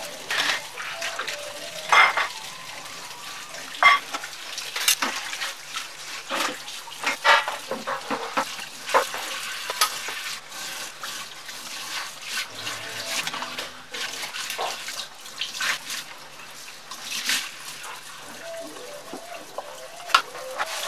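Kitchen tap running into a stainless steel sink while dishes are washed under it, with frequent short clinks and knocks of a metal bowl and board against the sink.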